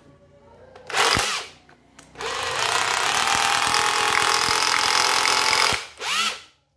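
A 14V cordless two-mode rotary hammer (concrete drill) is test-run by its trigger. It gives a short burst about a second in, then runs steadily for about three and a half seconds, and ends with another brief burst that winds down.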